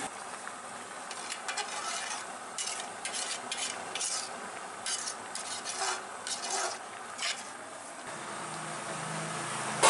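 A metal spoon scraping and stirring through boiling goat intestine curry in an aluminium pot, with irregular strokes over the steady bubbling of the gravy. A single sharp click comes right at the end.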